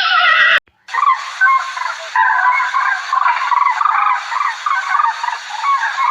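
A flock of birds calling: many short, overlapping chirping calls in a steady stream, beginning after an abrupt cut just under a second in.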